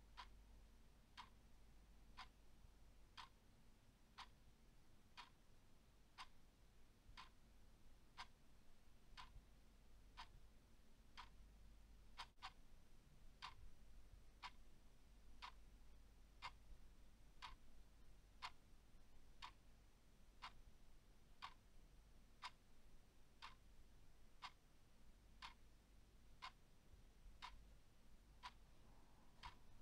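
Clock ticking faintly and steadily, about one tick a second.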